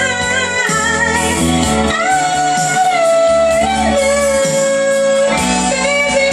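A woman singing into a microphone over backing music, holding long notes and stepping down to a lower held note about halfway through.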